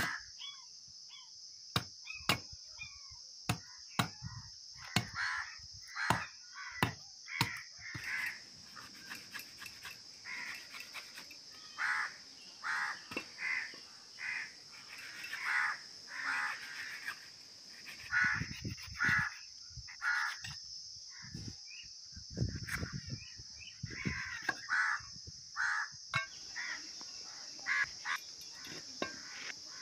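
Sharp knocks of a billhook chopping into a green palmyra palm fruit through the first several seconds. Crows caw repeatedly in runs over a steady high-pitched drone.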